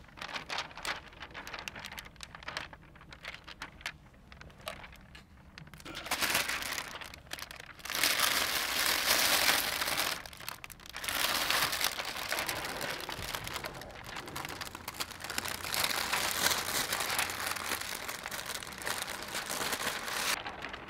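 Plastic window-tint film and its liner crinkling and rustling as the film is unrolled and handled against a wet windshield; sparse crackles at first, growing louder and more continuous from about six seconds in.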